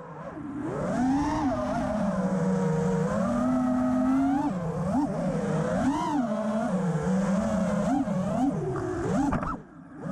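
Brushless motors and propellers of a 5-inch 6S FPV freestyle quadcopter, heard from its onboard camera: a buzzing whine that rises and falls with the throttle. It makes several quick swoops in the second half and nearly cuts out shortly before the end, as the throttle is chopped, then comes back.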